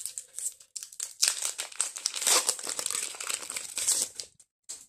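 Foil booster-pack wrapper crinkling as it is handled and opened: a dense run of crackles that dies away shortly before the end.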